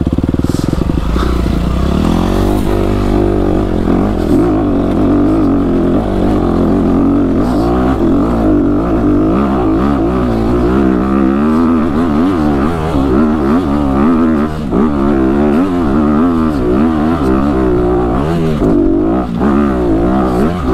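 Dirt bike engine in first gear under hard load on a steep hill climb, its revs rising and falling over and over as the throttle is worked, with a few brief drops in revs near the end.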